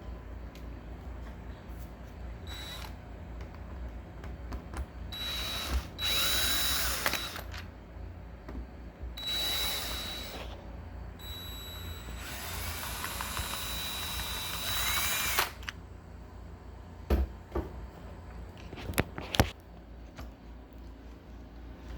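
A power drill running in three bursts of a few seconds each, its motor pitch rising and falling, while it turns screws on a door's deadbolt lock. A few sharp knocks follow near the end.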